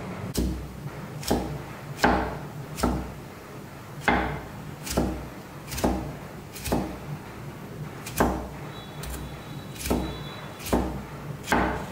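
A cleaver chopping carrot sticks into small dice on a wooden chopping board: sharp knocks a little over once a second, each with a low thump.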